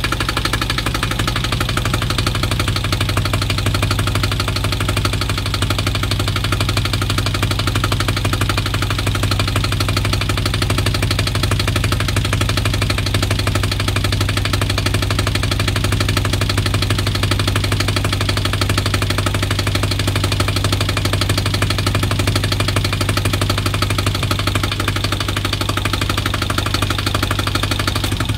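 Bukh inboard marine diesel, Danish-built, running steadily at idle soon after a cold start, heard close up with the engine box open.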